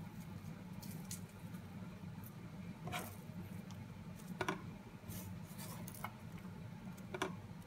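Chopped onion being scattered by hand onto a flatbread pizza base: a few soft, faint taps and patters over a low steady hum.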